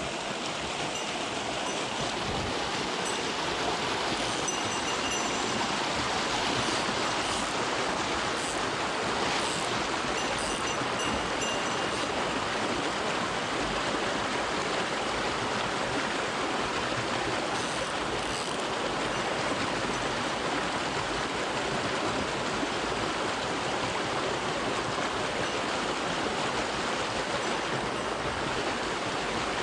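Small mountain stream running, a steady even rush of water.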